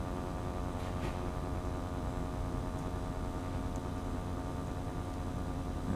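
Steady background hum and hiss with no distinct events: the electrical noise floor of the narration recording.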